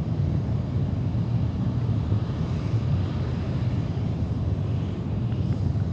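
Space Shuttle Main Engine (RS-25) firing at steady thrust on a test stand: a steady, dense low rumble with no breaks or changes.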